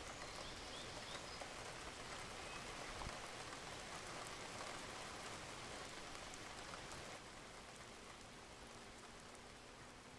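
Steady rainfall, an even hiss of falling rain, with a few faint bird chirps near the start. The rain drops to a quieter level about seven seconds in.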